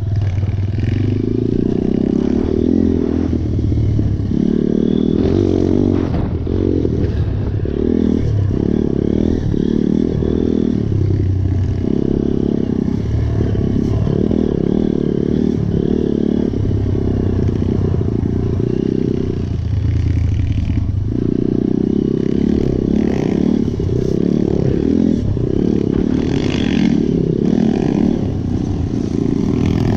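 Dirt bike engines running hard on a dirt track, rising and falling repeatedly as the riders open and close the throttle.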